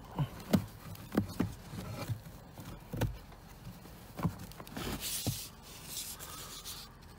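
Handling noise around a car's plastic pollen-filter housing: irregular light knocks and taps, with a brief scraping rustle about five seconds in.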